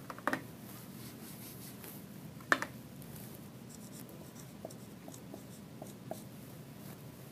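Dry-erase marker writing on a whiteboard: faint, short scratchy squeaks as letters are stroked, with a sharper click about two and a half seconds in.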